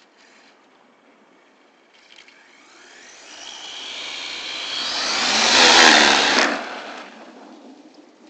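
A 1/10-scale 4x4 short-course RC truck with a 3650 3500KV brushless motor on 4S, passing at full throttle. Its motor and drivetrain whine rises in pitch and grows louder as it speeds toward the listener, is loudest about six seconds in, then drops away quickly as it goes by.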